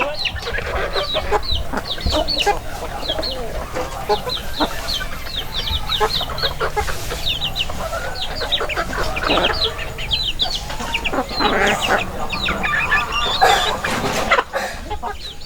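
Chickens clucking, with many short, high-pitched calls overlapping throughout above lower clucks.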